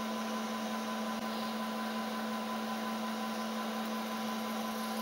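Milling machine spindle running steadily while a 5 mm carbide endmill bores out a sheared bolt in an ATV cylinder head: an even hum with a constant tone and no knocks or changes.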